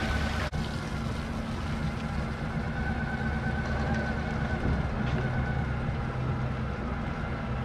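Tow vehicle's engine running steadily as it pulls a boat on its trailer up a wet launch ramp, with water running off the hull and trailer. A short click about half a second in.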